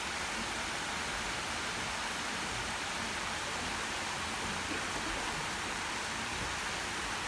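Shallow garden stream running over stones, with a small cascade falling over rock steps: a steady, even rush of water.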